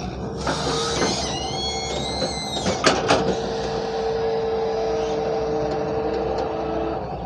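Hyundai 170 excavator running steadily, with high squealing tones between about one and three seconds in, a sharp knock just before three seconds, then a steady whine.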